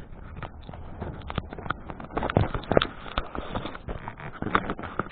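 A radio-controlled toy car clattering over rough ground: a run of irregular knocks and rattles, louder in clusters about two and a half and four and a half seconds in.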